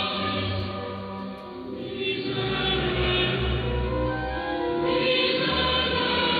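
Church choir singing sustained sacred music, received over a longwave AM radio broadcast, so the sound is narrow and cut off above about 4 kHz. The singing dips briefly about a second in, then swells again.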